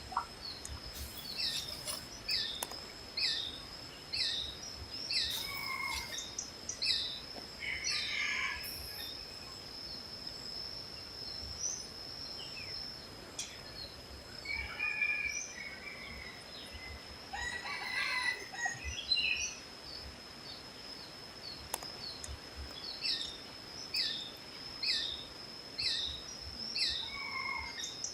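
Red junglefowl crowing a few times, mostly near the middle, over a bird's short chirps repeated about once a second and a steady high-pitched whine.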